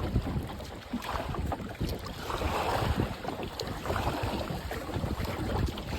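Rushing river water through a shallow whitewater riffle around a small paddled boat, with wind buffeting the microphone.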